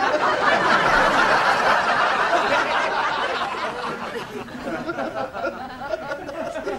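Studio audience laughing, loudest in the first few seconds and then dying away.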